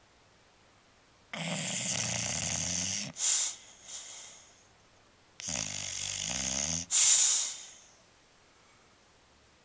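A bulldog snoring in its sleep: two snores about four seconds apart, each a rattling breath of about a second and a half followed by a shorter, louder puff.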